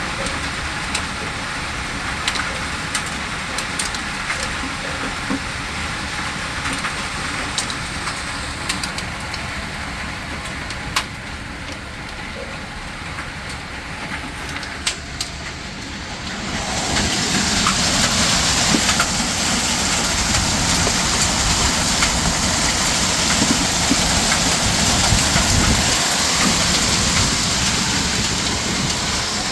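Hailstorm: hailstones coming down over a steady hiss, with scattered sharp impacts. A little past halfway the storm grows heavier and noticeably louder.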